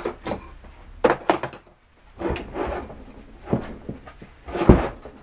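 Knocks, clicks and scraping from a ZF 5HP18 automatic gearbox casing being handled and repositioned, with a cluster of clicks about a second in, a scraping slide in the middle and a heavy thud near the end.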